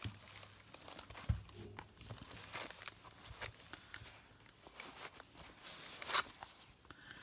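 Cotton fabric dust bag rustling and brushing as hands open it and feel inside, with a couple of light knocks about a second in and near the end.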